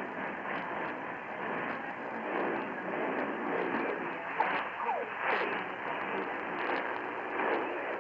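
AM radio reception of a weak station: a steady hiss of static with scattered crackles, thin and narrow in sound, and faint gliding traces of program audio under the noise.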